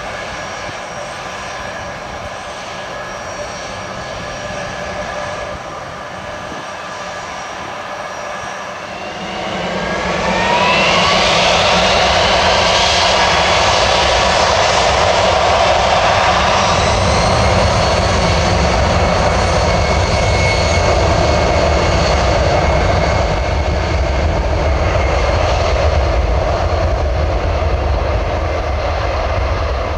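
Boeing C-17A Globemaster III's four Pratt & Whitney F117 turbofans, first running steadily at low power with a whine of several steady tones. About nine seconds in they spool up with a rising whine to high power for the takeoff roll, then run loud and steady with a deep rumble.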